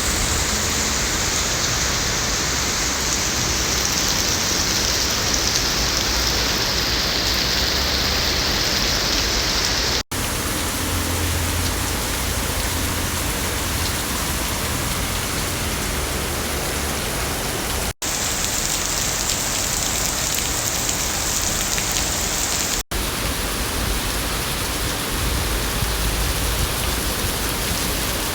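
Rain falling steadily, a continuous even hiss that drops out for an instant three times.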